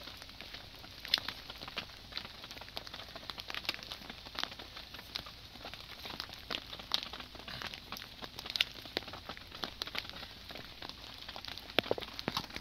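Rain pattering and a wood fire crackling: scattered sharp ticks over a soft steady hiss.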